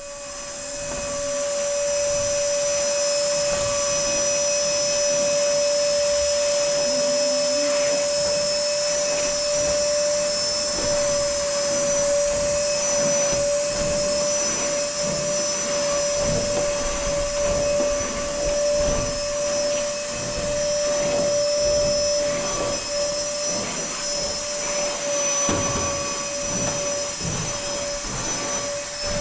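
A motor starting up and running steadily: a constant whine over a rushing hiss, with scattered knocks and handling sounds.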